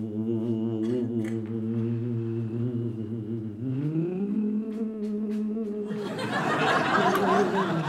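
A man imitating an airplane in flight with his voice: a steady droning hum with a wavering pitch, which slides up about three and a half seconds in and holds. About six seconds in, a dense rushing noise comes in over the drone.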